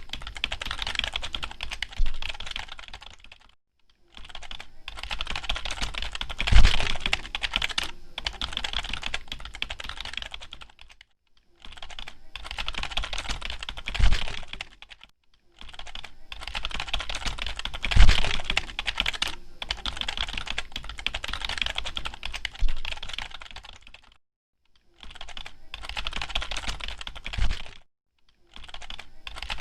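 Computer keyboard typing: quick runs of key clicks a few seconds long, broken by short pauses, with a handful of heavier keystrokes landing with a deeper thump.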